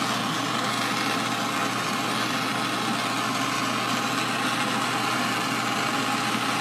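Handheld gas torch burning with a steady, even hiss while it heats a soldered joint for sweat soldering.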